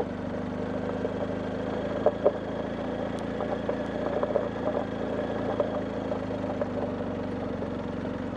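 BMW R1250GS Adventure's boxer-twin engine running steadily at low revs as the motorcycle rolls along a dirt track. Scattered small clicks and knocks come from the rough surface, with two louder knocks about two seconds in.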